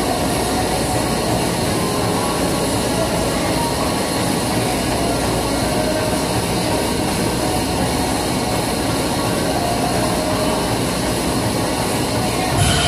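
A treadmill running under a runner at 8 mph, with other cardio machines running around it: a steady rolling rumble. A brief thump near the end.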